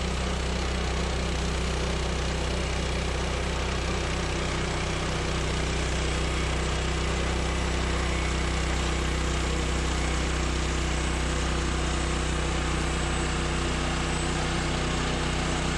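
Woodland Mills portable bandsaw sawmill running steadily, its engine driving a 7-degree hardwood band blade through a cedar log.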